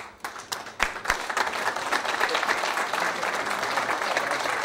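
Audience applauding: scattered single claps at first, thickening within the first second or two into steady applause.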